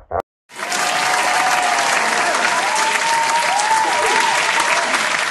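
Crowd applause that starts abruptly about half a second in and carries on at a steady level, with faint wavering tones running through it.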